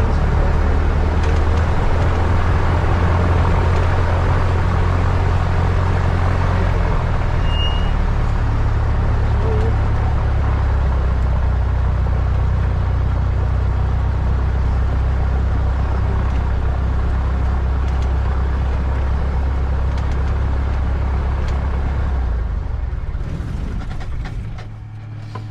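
Cessna 152's four-cylinder Lycoming piston engine running steadily at low power, heard from inside the cabin, then winding down and stopping near the end as the engine is shut down.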